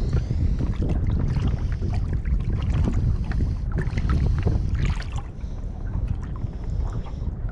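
Wind buffeting the microphone aboard a small boat, with scattered small knocks and water sounds; it eases a little about five seconds in.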